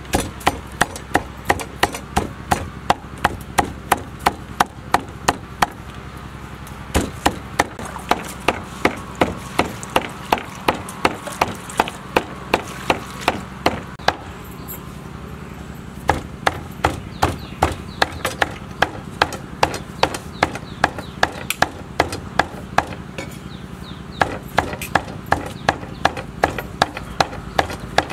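Cleaver chopping raw pork into mince on a thick round wooden chopping block: steady, sharp strokes about three a second, in runs of several seconds with short pauses between.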